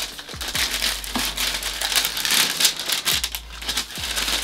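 Thin white wrapping paper in a sneaker box crinkling and rustling as it is unfolded and pulled back by hand, a continuous dense crackle of quick paper ticks.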